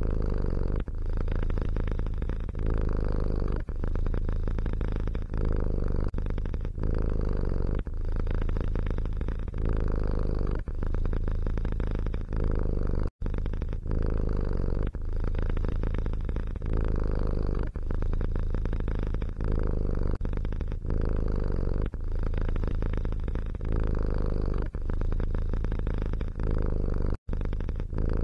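Domestic cat purring close up: a low, steady rumble that swells and eases with each breath in and out, about every second and a half, broken twice by a brief dropout.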